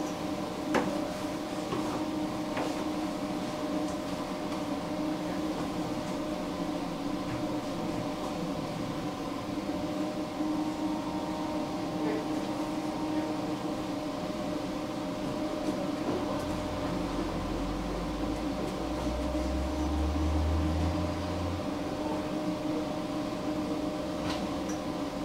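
Inside a standing tram: a steady electrical hum of several held tones from its onboard equipment and ventilation, with a low rumble swelling through the latter half and a few faint clicks.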